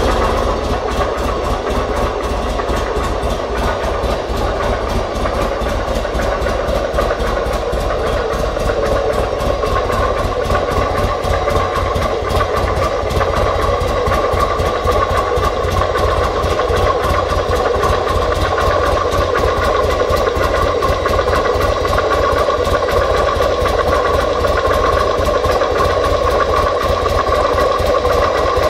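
2005 Buell XB9SX's 984 cc air-cooled V-twin engine running steadily at idle, a fast even pulsing with no revving.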